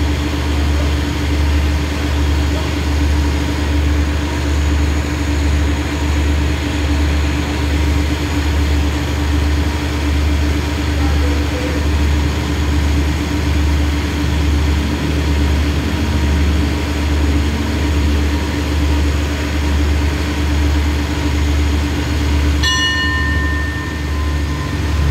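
Stationary State Railway of Thailand diesel passenger train idling at the platform: a steady low engine hum with an even slow pulsing. Near the end, a ringing tone of several pitches sounds briefly.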